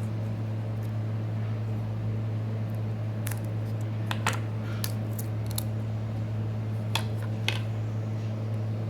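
A handful of small sharp clicks and taps as tools and phone parts are handled, over a steady low hum.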